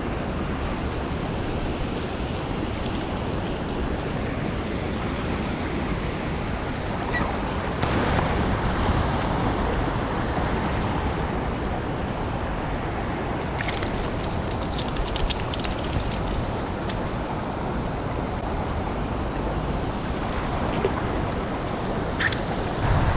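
Steady rush of a shallow river's current flowing over stones, mixed with wind buffeting the microphone. A few small clicks come in the middle and near the end.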